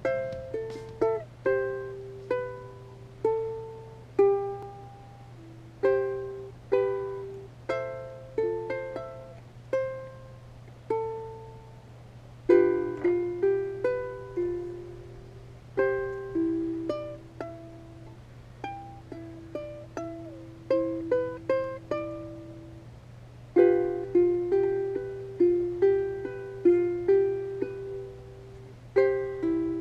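Background music: a melody of plucked notes, each starting sharply and fading quickly, over a steady low hum.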